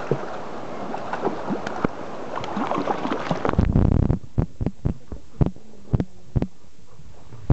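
Hooked brown trout splashing and thrashing in shallow river water. About three and a half seconds in, a loud low rumble as the camera plunges under the surface, followed by muffled underwater knocks about twice a second.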